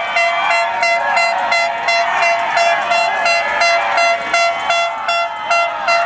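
A horn blown in rapid, regular toots, about three a second, over a crowd of voices shouting and cheering.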